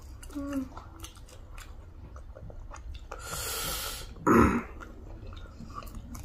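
Chewing and small mouth clicks of people eating spicy chicken wings. About three seconds in there is a long hissing breath, followed by a short, louder voiced sound.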